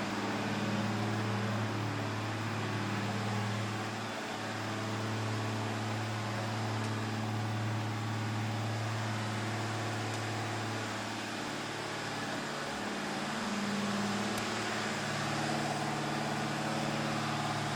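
Chrysler 440 big-block V8 running steadily at raised speed during camshaft break-in, hitting on all eight cylinders.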